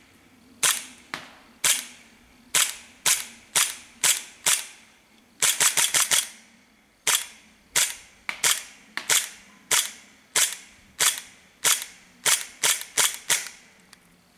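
Cybergun FNX-45 Tactical gas blowback airsoft pistol firing a full magazine: some two dozen sharp cracks, each a gas shot with the slide cycling, mostly about two a second, with a quick string of about six rapid shots around the middle.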